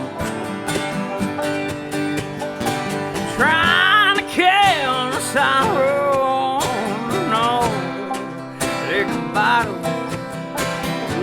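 Bluegrass band playing an instrumental break: acoustic guitar and banjo picking, with a high lead line that bends and slides through the melody from a few seconds in.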